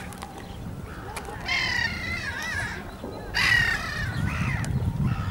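Gulls calling: two harsh, wavering cries, the second and louder one about three seconds in.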